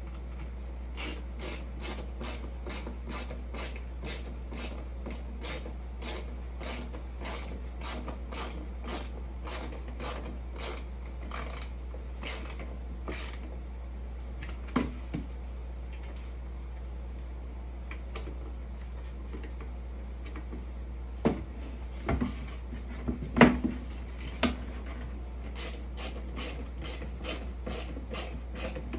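Hand ratcheting screwdriver clicking in a steady run, about two clicks a second, as screws are driven into a step box; the clicking pauses in the middle for a few sharp knocks, then starts again near the end. A low steady hum lies underneath.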